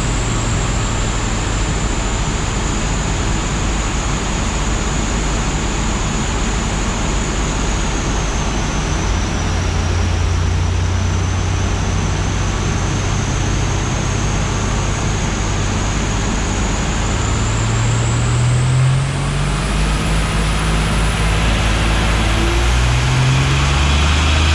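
Boosted LS V8 car engine running steadily, with a thin high-pitched whine that dips slightly and then climbs. From about two-thirds of the way in, the engine note rises in steps.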